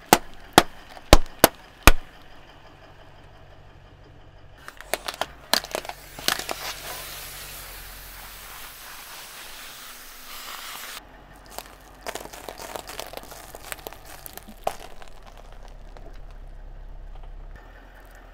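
Car tyre rolling over and crushing a series of objects on concrete: five sharp pops in the first two seconds, then bursts of cracking and crackling. From about six seconds a crushed aerosol can hisses as it sprays out for about four seconds and cuts off suddenly, followed by more crackles and pops.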